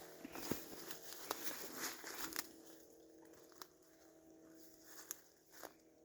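Faint, scattered crackling and crunching of dry leaves and twigs on the forest floor, thickest in the first couple of seconds and then thinning to a few single snaps.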